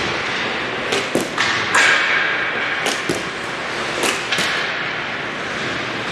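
Ice hockey game play: sharp clacks of sticks and puck, about seven of them over the first four and a half seconds, over steady rink noise.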